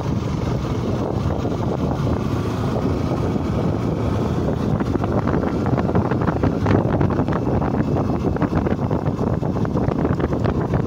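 Wind rushing over the microphone of a moving motorcycle, with the bike's engine running underneath as it climbs.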